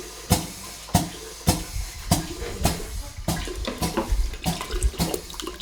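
Piston filling pump clacking about twice a second as it draws in liquid and pushes it on toward the filler, with water splashing and gurgling through the line.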